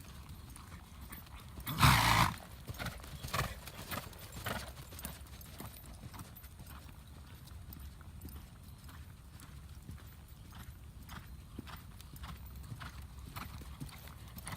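Horse's hoofbeats at a smooth lope, a steady run of soft strikes, with one loud, short burst of noise about two seconds in.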